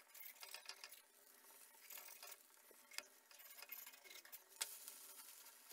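Faint crackling of an egg omelette frying in oil on an iron tawa, with two sharp clicks of a metal spatula against the pan, about three and four and a half seconds in.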